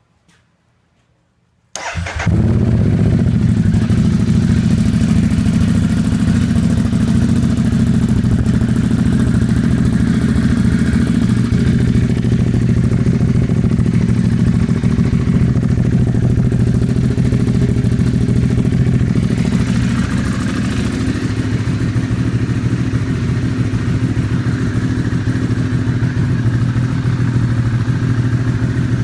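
2014 Ducati Hypermotard SP's 821 cc L-twin engine starting about two seconds in, then idling steadily.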